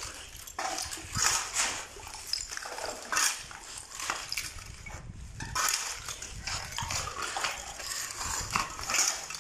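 Shovels scraping over a concrete floor as a pile of soil, sand and unshredded trash (plastic bags, cans, bottles) is turned over by hand, in repeated irregular strokes with rattling of the rubbish.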